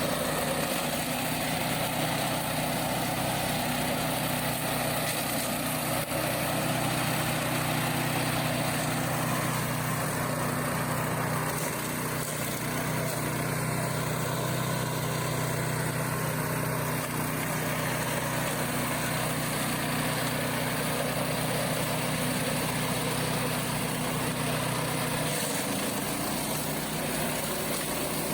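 Remote-control flail mower's engine running steadily; the engine note shifts about 25 seconds in.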